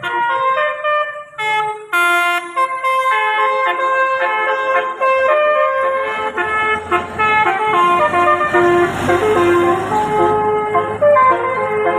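Telolet bus horn run by a DAV D3 module, playing a quick tune of horn notes that change pitch every fraction of a second, with several horns often sounding together as chords.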